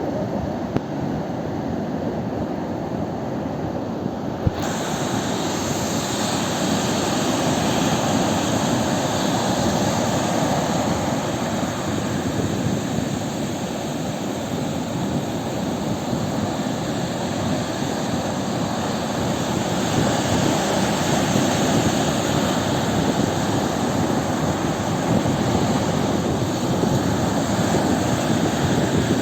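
Continuous roar of sea surf, swelling and easing gently with no single wave crash standing out. The sound turns suddenly brighter about four and a half seconds in.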